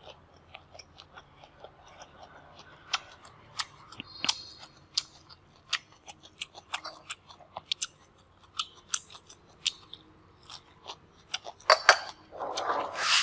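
Close-miked chewing of food, with irregular sharp crisp clicks of crunching and a louder, longer crunch near the end.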